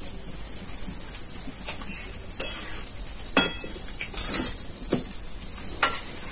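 A metal spatula knocking and scraping against a metal wok as cooked food is worked out of it: a handful of short, sharp clinks spread from about two seconds in to near the end. Behind them, insects chirp steadily at a high pitch.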